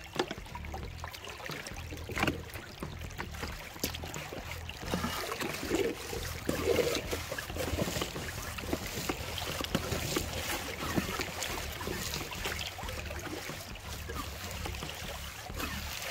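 A hand suction gun (gold sucker) working in a creek: water sloshing and splashing, with gravel and small stones clicking and rattling. It gets louder from about five seconds in.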